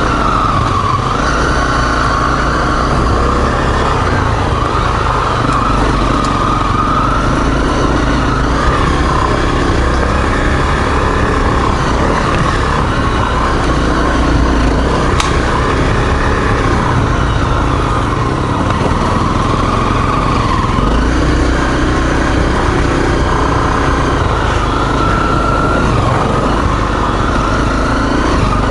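Dual-sport motorcycle's single-cylinder four-stroke engine running steadily while riding, its pitch slowly rising and falling with the throttle.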